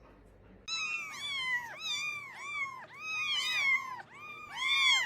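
Cat meowing over and over, a quick run of short high-pitched mews at about three a second. It starts about a second in, and the loudest mew comes near the end.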